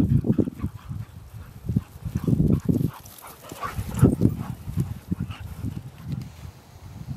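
Two dogs, a vizsla and a lurcher, making low play-growls in irregular bursts as they chase and wrestle each other, loudest about four seconds in.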